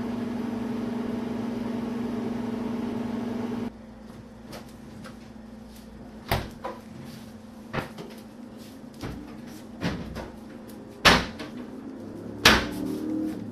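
A steady low hum that cuts off about four seconds in. Then a run of sharp knocks and clunks as kitchen cupboard and refrigerator doors are opened and shut, the two loudest near the end.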